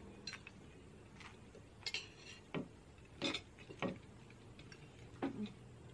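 Cutlery and tableware clinking against plates and glasses at a dinner table: about eight light, irregular clinks over a low steady hum.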